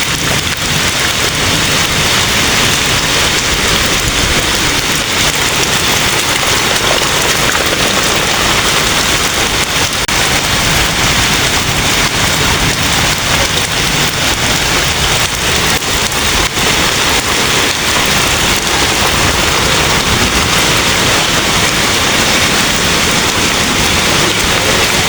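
Heavy rain pouring down steadily, a dense even hiss of drops hitting hard surfaces.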